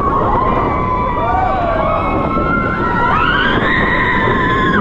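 Roller coaster riders screaming during the ride, several long held screams overlapping, with one rising higher about three seconds in, over the rush of wind past the microphone.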